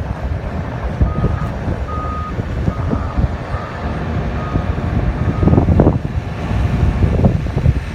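Hyundai HL940XT wheel loader's reversing alarm beeping about six times, roughly one beep every 0.8 s, stopping about five and a half seconds in, over the steady rumble of its Cummins diesel engine.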